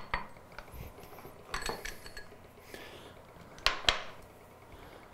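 Metal waterblasting pump parts, the plungers and fittings, being handled and set down on a wooden tabletop: a few sharp clinks and knocks, with two louder ones in quick succession about two-thirds of the way through.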